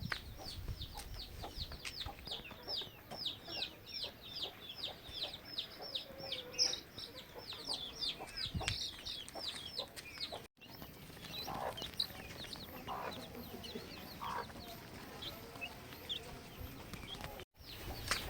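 Backyard chickens calling: a quick run of high, falling peeps, about three or four a second, then after about ten seconds a few lower clucks.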